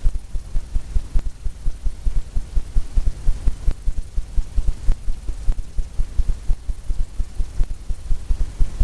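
Rapid low thumps, about five or six a second, as a palette knife taps and works paint onto a canvas on an easel.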